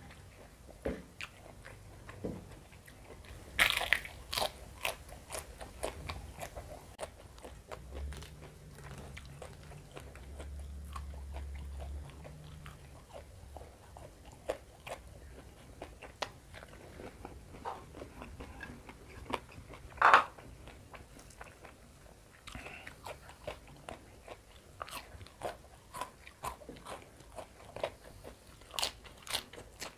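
Close-miked eating: crunching bites and chewing of fried carp, rice and raw lettuce and other raw vegetables eaten by hand. The sharp crunches come at irregular moments, the loudest about four seconds and twenty seconds in.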